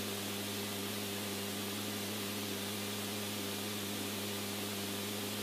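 Steady radio static: an even hiss with a low, constant hum underneath.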